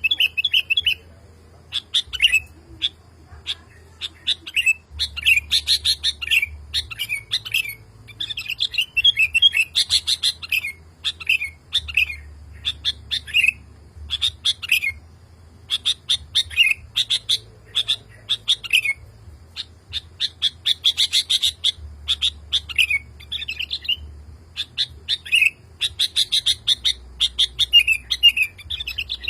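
Male sooty-headed bulbul (kutilang) singing excitedly and persistently: short bubbly phrases of chirps repeated in quick bouts, with brief pauses between them.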